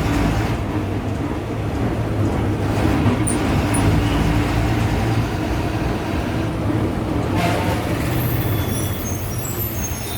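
Ashok Leyland BS4 bus's turbocharged diesel engine running steadily, with a brief hiss about seven and a half seconds in.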